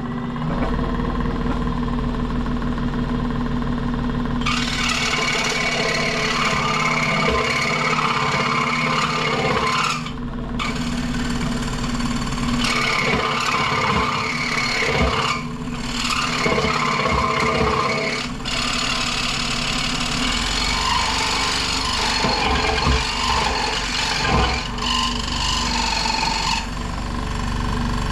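Central Machinery 16-inch variable-speed scroll saw running, its blade cutting a piece of practice wood from about four seconds in. The rasp of the blade through the wood stops briefly three or four times as the piece is turned, over the steady hum of the motor.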